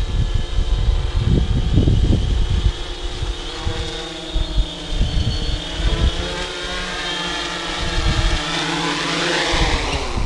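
AEE AP9 quadcopter's brushless motors and propellers whining steadily as it comes down to land close by, with a gusty low rumble of prop wash on the microphone during the first few seconds. Near the end the pitch shifts and the motors cut off as it touches down.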